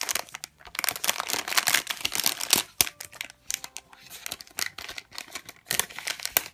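Foil blind-bag packet crinkling and tearing as it is ripped open by hand. The crinkling is dense for the first few seconds, then turns into sparser crackles as the bag is pulled apart.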